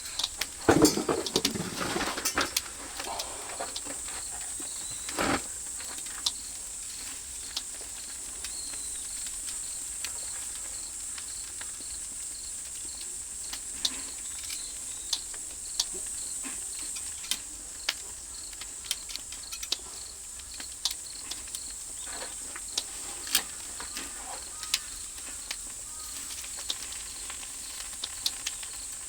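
Pork grilling over an oak-firewood fire: a steady high hiss with scattered sharp pops and crackles, louder and busier in the first three seconds.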